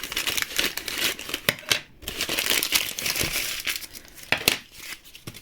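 Plastic packaging crinkling as it is handled, with a brief pause about two seconds in and softer rustling near the end.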